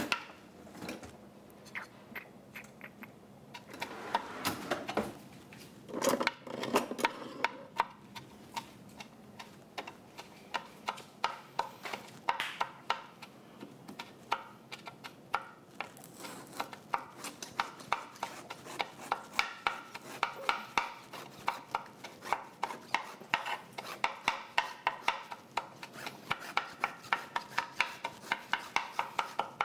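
A kitchen knife sawing back and forth through a watermelon's thick rind, a long run of short rasping strokes about two or three a second, after a few scattered kitchen knocks at the start.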